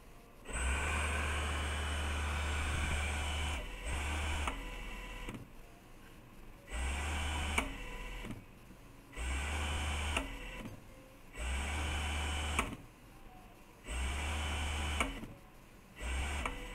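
Industrial sewing machine servo motor spinning up and stopping again and again: seven runs of a steady hum, the first about three seconds long and the rest about one second each, with short pauses between them and a sharp click as some runs stop.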